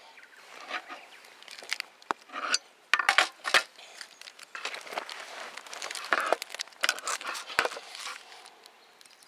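Irregular clinks, knocks and rustling scrapes of small objects being handled, loudest a few seconds in.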